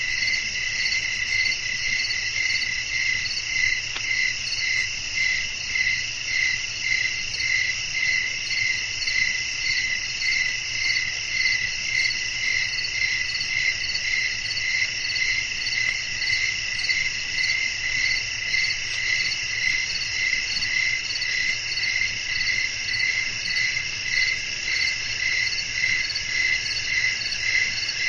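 Crickets chirping in a dense night chorus: a continuous high trill that pulses evenly about twice a second.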